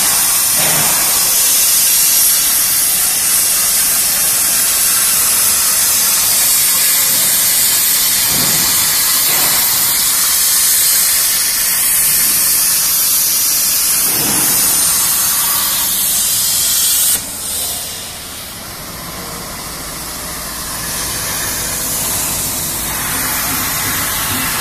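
CNC plasma cutter torch cutting steel plate: a loud, steady hiss from the arc and its air jet. About two-thirds of the way through, the hiss drops suddenly and carries on more softly.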